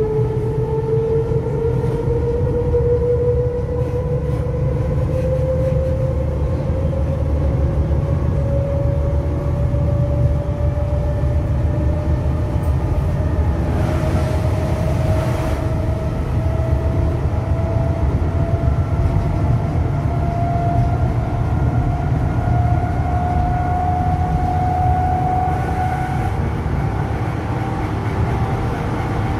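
Berlin S-Bahn class 485 electric train under way: the traction motors whine and rise steadily in pitch as the train picks up speed, over a steady low rumble of the running gear. The whine drops away a few seconds before the end.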